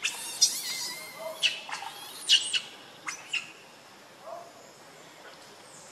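Baby macaque screaming in a string of short, high-pitched shrieks, about seven in the first three and a half seconds, then falling quiet. These are distress screams as an older monkey grabs it.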